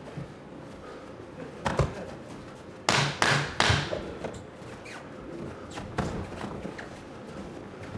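Boxing gloves landing punches: a single sharp thud, then a quick flurry of three close together about three seconds in, the loudest, and two more near the six-second mark, over a low hall background.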